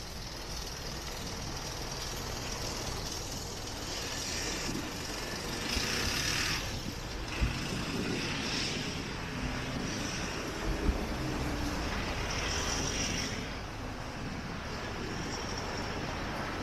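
Road traffic: vehicles passing, with the hiss swelling and fading as they go by. Two short knocks stand out, one about halfway through and one a few seconds later.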